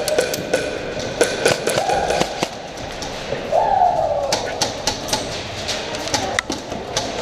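Irregular sharp clicks and knocks, typical of airsoft guns firing and BBs striking the arena's walls and props.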